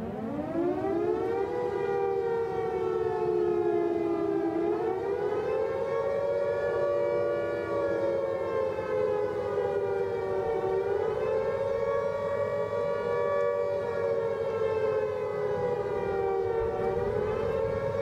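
Civil defense warning siren winding up in pitch over the first second or so, then sounding a slow wail, its two-note chord rising and falling roughly every six seconds.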